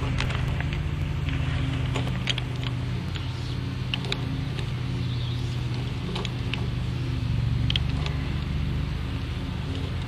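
A steady low machine hum, with scattered light clicks and taps as a hand tool turns the liquid-line service valve on an air-conditioner condensing unit to close it.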